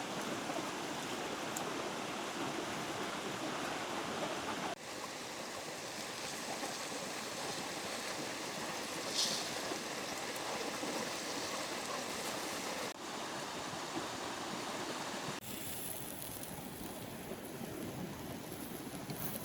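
River water flowing in a steady rush, changing abruptly a few times. A short high-pitched sound stands out about nine seconds in.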